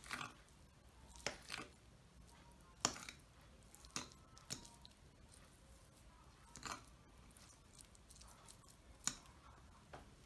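A metal fork and tongs clicking and scraping against a plate as boiled chicken breast is pulled apart. About eight sharp clicks come at uneven intervals; the loudest are about three seconds in and about nine seconds in.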